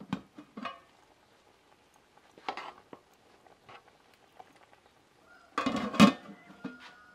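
Handling of cooking gear: a few scattered knocks and clinks, then a short burst of clattering about five and a half seconds in that ends in a sharp knock, the loudest sound.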